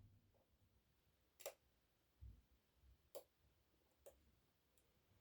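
Near silence broken by three or four faint, sharp clicks, a second or so apart, of a lock pick probing the pins inside an ASSA Twin Exclusive lock cylinder.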